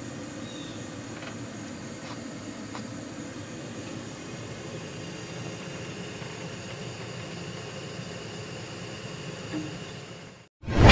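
Steady hiss of compressed air flowing through a cylinder leakage tester into a pressurised engine cylinder. It cuts off suddenly just before the end.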